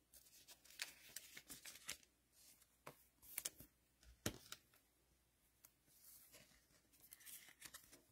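Faint handling of a trading card and a clear plastic card sleeve: scattered light clicks and ticks, then a soft plastic rustle near the end as the card is slid into the sleeve.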